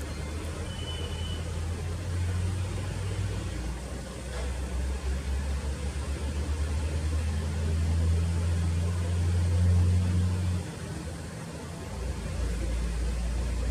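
Low rumble of a running motor, its pitch shifting a few times, easing off suddenly about eleven seconds in and then returning.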